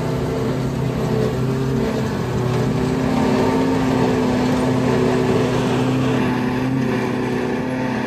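Tractor and pull-type forage chopper running steadily under load as the chopper picks up windrowed hay, chops it and blows it into the towed wagon: a continuous machine hum.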